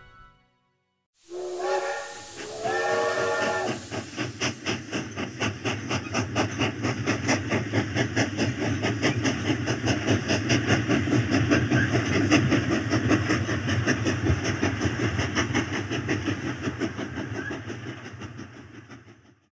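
Steam locomotive: a burst of hissing steam, two short whistle blasts, then the exhaust chuffing in an even rhythm, fading out near the end.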